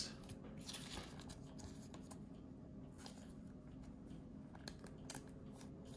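Faint handling of a thin plastic penny sleeve as a trading card is slid into it: soft rustles and a few light clicks scattered through, over a low steady hum.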